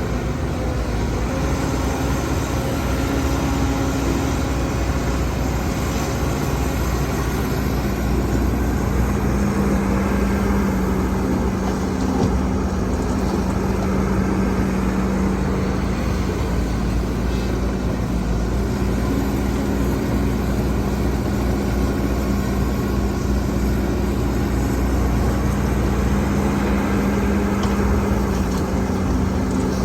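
Heavy diesel engine of earthmoving machinery running steadily, with a constant low hum and no sharp knocks.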